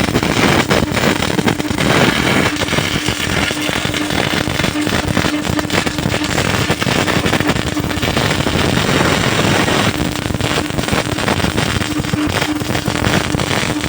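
MIG welding arc crackling steadily: a continuous dense sputter of fine pops, with a faint steady hum underneath.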